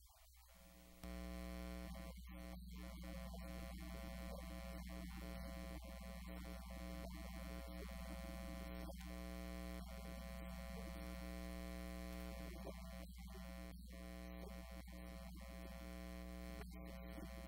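Steady electrical mains hum and buzz in the sound system, starting suddenly about a second in and cutting off suddenly near the end.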